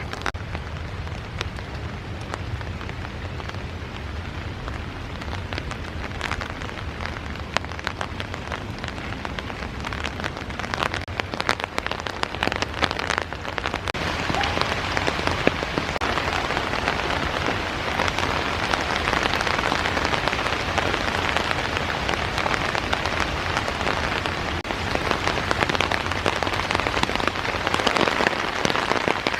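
Heavy drizzle falling, a dense patter of raindrops with many close, sharp drop strikes over a steady low rumble. The rain grows heavier about halfway through.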